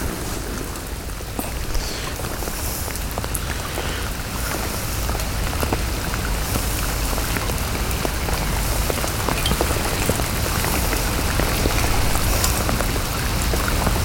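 Heavy rain pattering hard, with dense close drop ticks from rain striking the plastic bag over the camera, and a low rumble underneath; it gets gradually louder.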